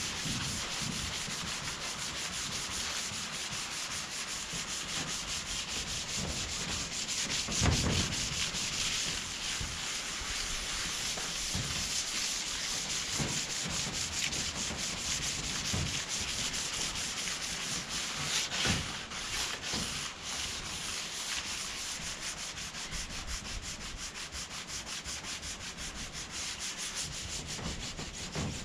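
Emery paper rubbed by hand over the caravan's bodywork in rapid back-and-forth strokes, a steady gritty rasp while the first cleaning strips off the dirt. Two louder knocks come about 8 and 19 seconds in.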